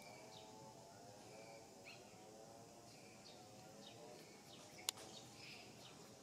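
Faint bird chirps repeating in the background over a low wavering drone, with one sharp click about five seconds in.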